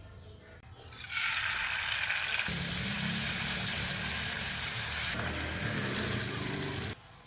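Food sizzling as it fries in hot oil, a dense hiss that starts about a second in and cuts off suddenly near the end.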